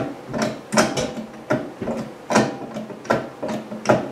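Master Force click-type torque wrench having its handle twisted to set the torque, a series of sharp ratcheting clicks, about two a second, as the setting is dialed up toward 132 inch-pounds.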